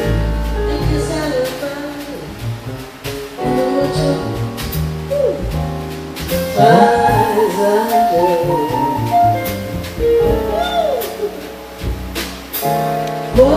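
A woman singing a slow bossa nova song through a vocal microphone and PA, backed by a jazz trio of piano, upright bass and drums. The singing grows louder about halfway through.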